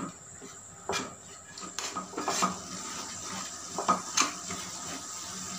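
A metal ladle stirring and scraping thick carrot halwa in a metal pot, with several sharp clinks of the ladle against the pot. The halwa is cooking down on a high flame after its sugar has melted.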